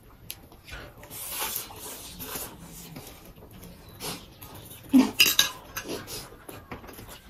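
Several people slurping and chewing chow mein noodles, with chopsticks and a fork clicking against plates and bowls; the loudest clatter comes about five seconds in.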